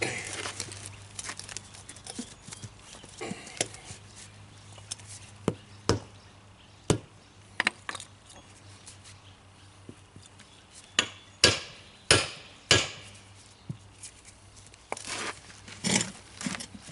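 Hammer blows on a wood block set against a lawn tractor tire to break the tubeless bead loose from its steel rim: scattered knocks, then three hard strikes about half a second apart, with scraping and handling noise in between.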